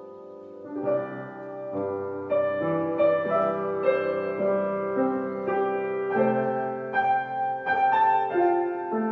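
Solo piano playing a slow, gentle melody over held chords, a new note struck about every half second, getting louder about a second in.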